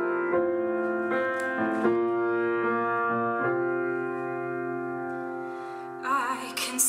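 Piano playing a slow, tender instrumental passage of struck, sustained chords between sung lines. About six seconds in, a woman's voice comes back in with vibrato.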